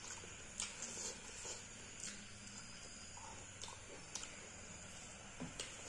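Close-up chewing and wet mouth sounds of someone eating rice and fish curry by hand: soft smacks and clicks every half second or so.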